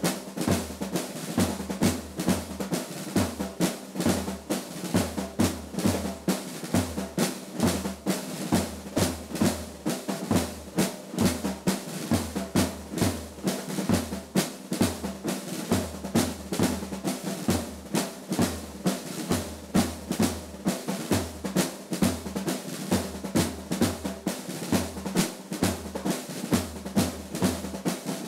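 Drum-driven music: rapid snare-drum rolls over a steady bass-drum beat about twice a second.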